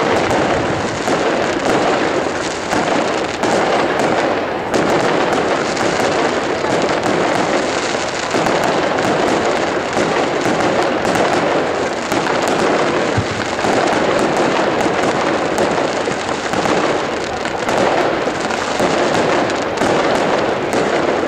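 Fireworks display: a continuous dense barrage of shell bursts and crackling, with many sharp pops and no pause.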